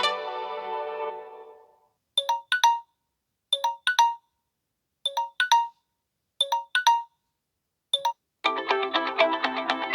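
Samsung Galaxy Wide3 ringtones. A melodic ringtone fades out first. Then a simple ring of short paired electronic beeps plays four times, about a second and a half apart, with a single beep after the last pair. A busier melodic ringtone starts near the end.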